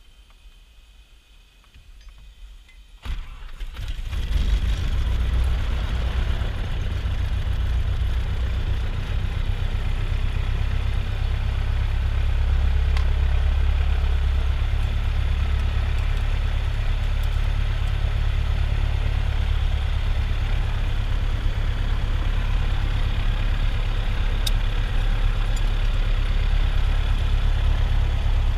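Light aircraft's piston engine, heard from inside the cockpit, cranked by the starter about three seconds in and catching at once, then running steadily at a low throttle setting. It is a primed cold start.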